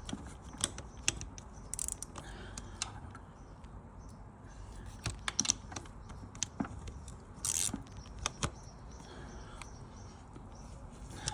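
Irregular clicks and metallic ticks of a wrench tightening the 13 mm oil drain plug on a KTM 65 motorcycle, with a short denser run of clicking about seven and a half seconds in.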